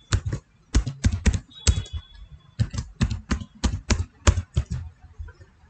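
Computer keyboard typing a password: about twenty quick key clicks with a brief pause about two seconds in.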